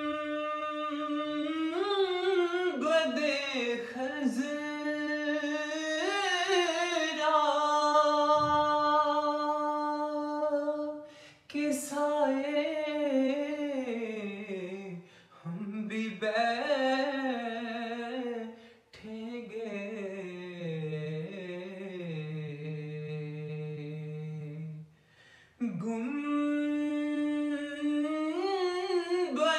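A man singing a naat unaccompanied, in long held, drawn-out notes with ornamented turns, broken by a few short pauses for breath.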